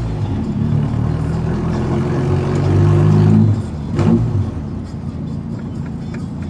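Volkswagen Gol's engine and exhaust rumbling under acceleration, the pitch rising and getting louder until about three and a half seconds in. It drops off suddenly with a short sharp sound around four seconds in, then settles to a steadier drone.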